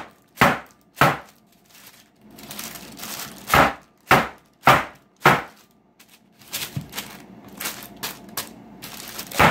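Metal cookie sheet slammed down hard on the counter over and over to make warm no-bake cookies spread flat: two sharp bangs, a pause, four more in quick succession, then lighter knocks and one last bang near the end.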